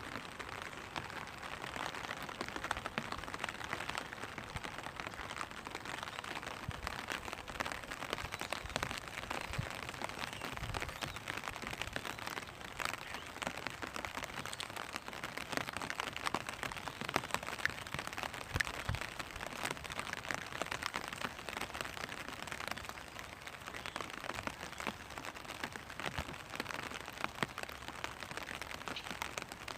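Rain pattering on a clear vinyl umbrella: a steady hiss of many small drops, with individual drops ticking sharply on the plastic.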